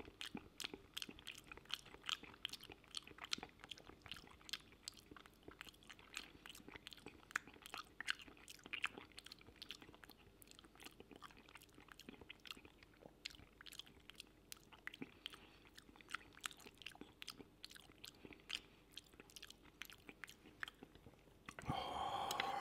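Close-miked chewing of creamy mushroom pasta: soft, wet mouth sounds with many small sharp clicks throughout. Near the end there is a louder sound about a second long.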